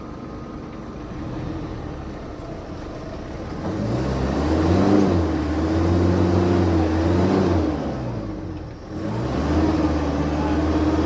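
Four-wheel-drive's engine revving hard as it tries to drive straight through an off-road obstacle, its pitch rising and falling. It eases off about eight seconds in, then revs up again.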